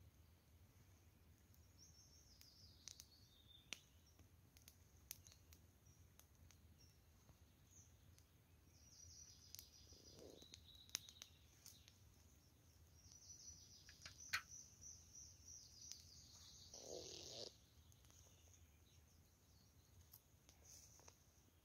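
Near silence in woodland: faint songbird trills and chirps, strongest in the middle of the stretch and again near its end. Scattered small clicks from a small twig campfire crackling run through it.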